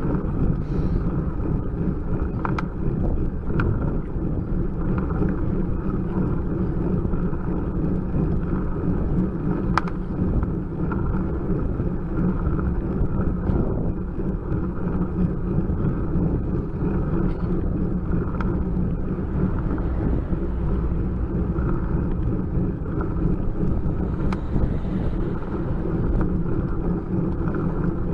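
Steady rumble of a road bicycle riding uphill on asphalt, its tyres and drivetrain picked up through a bike-mounted camera, with light wind on the microphone and a few faint clicks.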